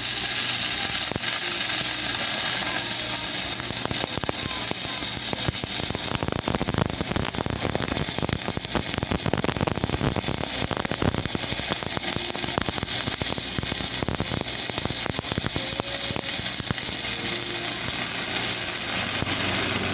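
Stick (SMAW) arc welding with a 2.6 mm electrode: the arc gives a steady, dense crackle and sizzle as the rod burns down without breaking off, on a welding machine freshly back from servicing.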